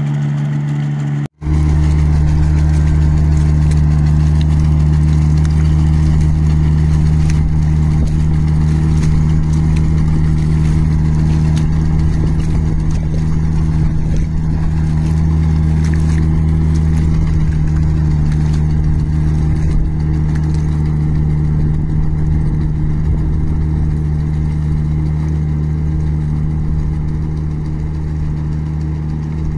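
Ride-on rice transplanter's engine running steadily at a constant speed, with a brief dropout a little over a second in.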